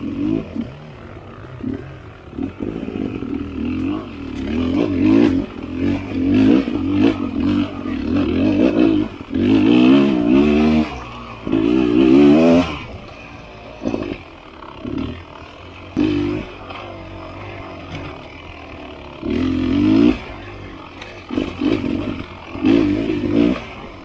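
Beta Xtrainer two-stroke dirt bike engine worked in short bursts of throttle, the pitch rising and falling with each blip, with sharp knocks from the bike over rough ground.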